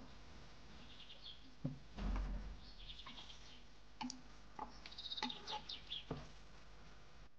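A wooden spatula scraping and knocking against a nonstick frying pan, several short strokes, as minced meat and onion are stirred and browned.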